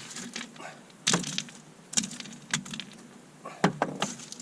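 Sharp metallic clicks and knocks, about five of them spread across a few seconds, as a screwdriver works the oil drain screw out of a MerCruiser Bravo 3 outdrive.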